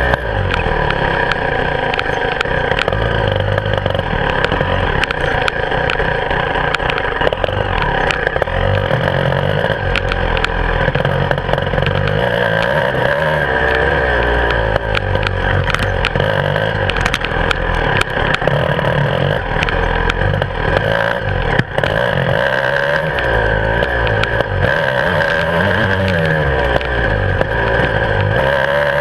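Beta 300 RR two-stroke enduro motorcycle engine running hard under constantly changing throttle, revving up and down, with frequent knocks and rattles as the bike goes over the bumps.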